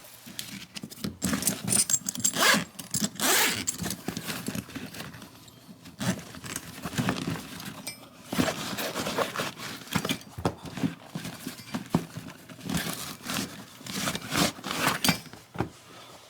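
Irregular scraping and rasping strokes of hand-shaping a cutlass handle, with a few sharp knocks between them as the work is handled.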